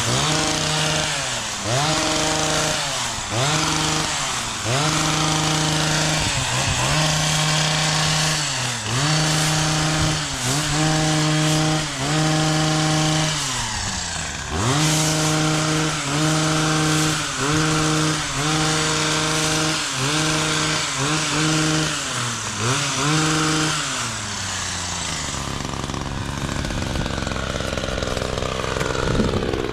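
Chainsaw revved again and again while cutting: each burst jumps up to a high, steady pitch for about a second and then drops back, roughly every one to two seconds. The revving stops a few seconds before the end, leaving a steadier, lower engine drone.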